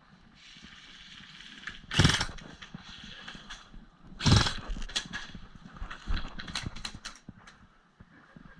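Two loud thumps about two seconds apart, then a run of quick clicks and knocks that dies down near the end.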